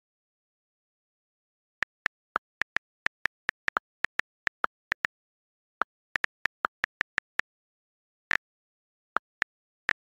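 iPhone on-screen keyboard clicking as a message is typed, starting about two seconds in. It is a quick, irregular run of short sharp taps at two slightly different pitches, broken by a few brief pauses.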